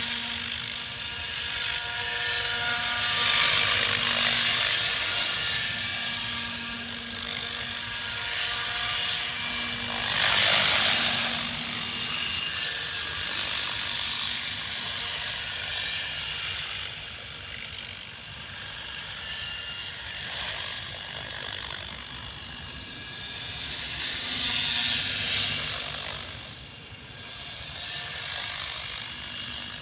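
KDS 700-size electric RC helicopter in flight: a steady whine from its motor and gears with the whoosh of the main rotor. It swells louder a few times, most of all about ten seconds in, as the helicopter moves nearer and farther.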